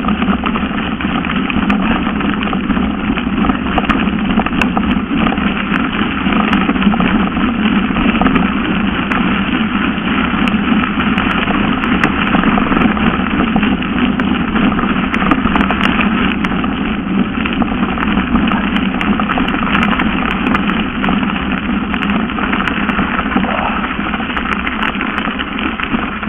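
Steady rush of wind on the microphone and mountain-bike tyres rolling over a gravel forest road at speed on a downhill run, with a few faint small ticks.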